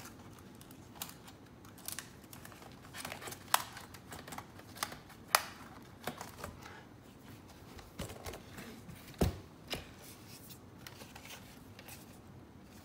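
Irregular small plastic clicks and taps as a laptop keyboard is handled and its ribbon cables are worked loose from the connectors beneath it. A few sharper clicks stand out, one about three and a half seconds in, one just past five seconds and one a little after nine seconds.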